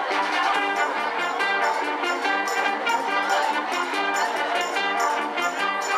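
High school wind band playing live: saxophones and brass over a drum kit, with a steady beat.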